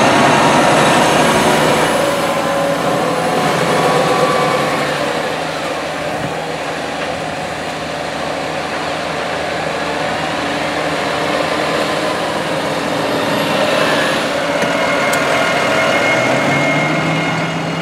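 Deutz-Fahr 9340TTV tractor's six-cylinder diesel engine running steadily while the tractor pushes corn silage up a pile with a front dozer blade. The engine note swells and eases slightly as it works, settling to a steadier hum near the end.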